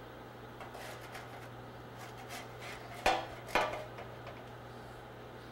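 Metal spatula scraping lightly, then clacking twice against a plate about half a second apart as fish fillets are set down on it.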